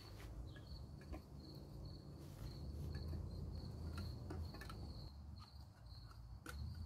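A cricket chirring in an even, steady pulse, high-pitched. A few faint clicks of a screwdriver prying at the lid of a metal paint can.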